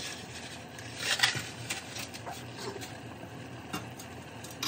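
Large stainless pot of water at a rolling boil with spaghetti in it, bubbling in scattered small ticks over a steady low hum, with a louder clatter about a second in.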